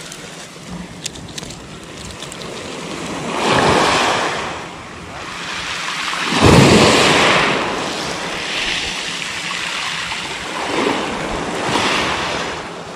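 Small waves breaking and washing up a pebble beach, swelling and ebbing, with the loudest surges about three and a half and six and a half seconds in.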